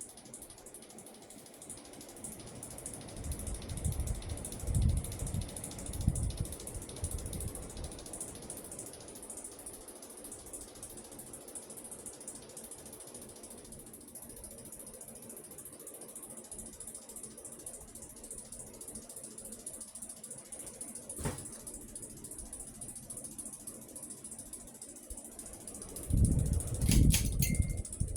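Hunter ceiling fan running, with a steady high-pitched whine and mechanical ticking. Deep rumbles of moving air buffet the microphone twice, a few seconds in and near the end, and a sharp click sounds about three quarters of the way through.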